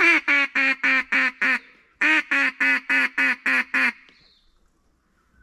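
Mallard duck call blown by a hunter: two quick runs of loud, even quacks, about seven and then eight notes at roughly four a second, with a short break between. The calling is aimed at ducks circling in, to turn them toward the blind.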